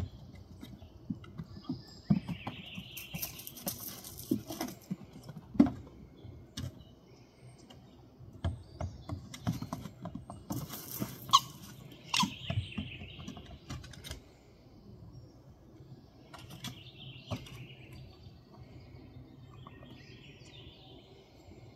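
Scattered taps, clicks and thumps of a Shikoku puppy playing with a small ball, its paws and claws scuffling over a wooden step and mat. Birds chirp now and then in the background.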